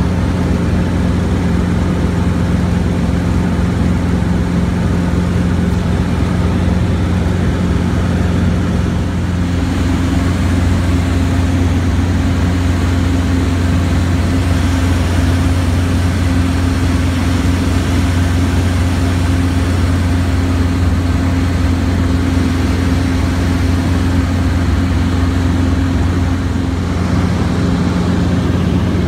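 Robinson R22 helicopter in flight, heard from inside the cabin: a loud, steady drone of engine and rotor. One of its tones steps up in pitch about a third of the way in and drops back near the end.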